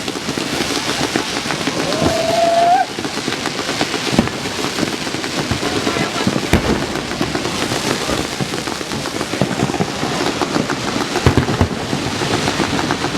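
Fireworks display going off: a dense crackling with several sharp booms, and a brief rising whistle about two seconds in.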